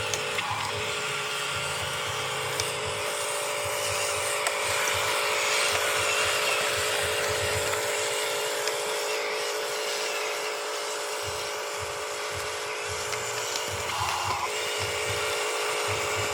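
Small electric motor and gearing of an RC construction model whining steadily, with a brief change about fourteen seconds in.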